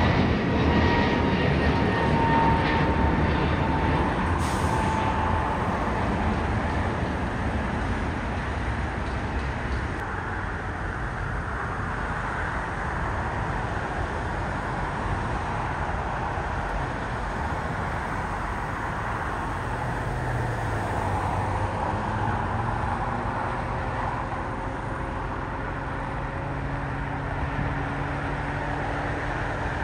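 Jet airliner climbing out after takeoff, its engine noise fading with a falling whine over the first ten seconds. Then a steadier, quieter rumble of jet engines across the airfield, with low engine tones rising slightly from about twenty seconds in.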